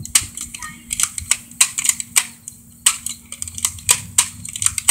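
Nerf foam-dart toy blaster's mechanism clicking repeatedly as it is worked: about a dozen sharp plastic clicks, irregularly spaced at roughly three a second.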